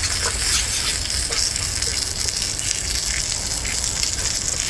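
Bacon sizzling in a small pan over a Solo Stove Lite wood-burning stove: a steady, even hiss, with the wood fire's low rumble underneath.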